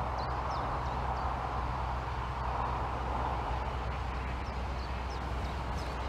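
Steam train working in the distance as it approaches, a steady rumble, with a small bird giving quick high chirps near the start and again near the end.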